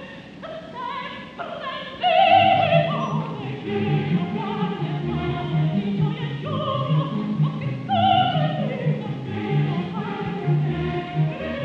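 Operatic soprano singing quick, agile coloratura runs high in her range over an orchestra that keeps a steady, bouncing beat.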